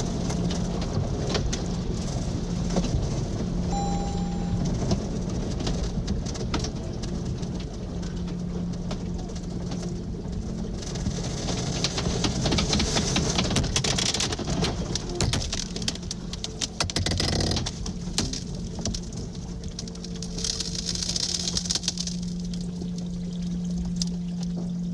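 Tsunami floodwater churning and rushing around a car pinned inside a flooded barn, heard through the car's dashcam, with many small knocks of debris and a steady low hum underneath. Two louder washes of hissing water come about halfway through and again near the end.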